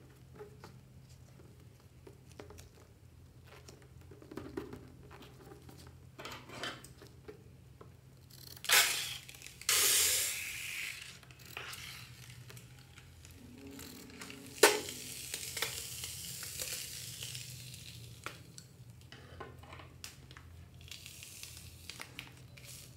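Foam forced out of the neck of a squeezed rubber balloon, hissing and spluttering in bursts, loudest about nine to eleven seconds in. A sharp click follows later, then a longer hiss that fades away.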